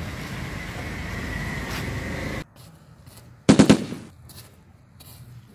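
A short burst of machine-gun fire sound effect: a quick run of rapid shots lasting about half a second, about three and a half seconds in. Before it, a steady outdoor background hiss with a faint high whine cuts off abruptly.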